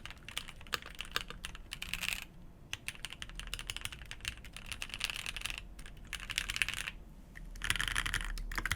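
Rapid typing on a mechanical keyboard fitted with Gateron CJ linear switches, in runs of fast keystrokes with short pauses about two seconds in and about seven seconds in, and a louder run near the end.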